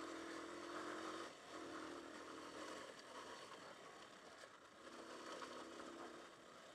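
Hartford VR150's 150cc single-cylinder air-cooled engine running faintly at a steady pitch while riding, over a steady hiss. The engine note dips briefly about a second in and fades in the middle before coming back.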